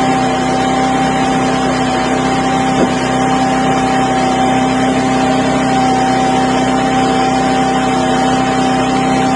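Hydraulic pier-installation drive running steadily with a constant hum and whine as it screws a helical pier's lead section into the ground.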